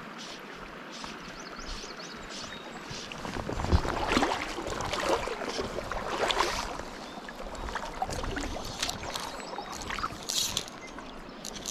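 Creek water running steadily, with a knock a little under four seconds in followed by a few seconds of close splashing and sloshing in the water.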